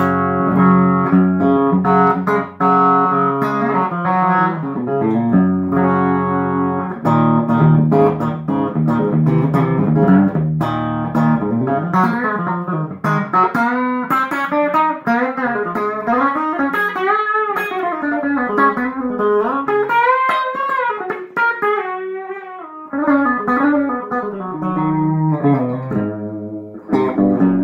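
Pine-body Esquire-style electric guitar with a single bridge pickup, played in its cocked-wah tone setting, a fixed wah-like filtered voice. Strummed chords come first, then single-note lead lines with notes bent up and down in pitch through the middle.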